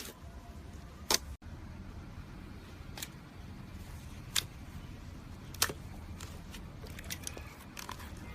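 Slime being handled, giving scattered sharp clicks and pops every second or so over a low, steady hum.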